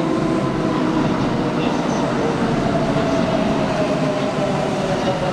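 Electric commuter train running at the platform: a loud, steady rumble of wheels on rail under the whine of its traction motors, one tone of which slowly falls in pitch in the second half.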